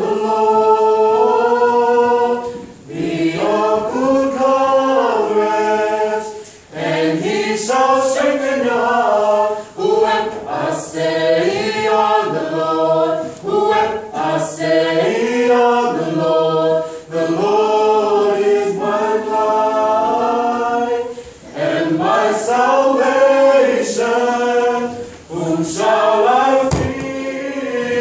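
Samoan church youth choir of children and adults singing a hymn a cappella in full harmony, in phrases with short breaks every few seconds.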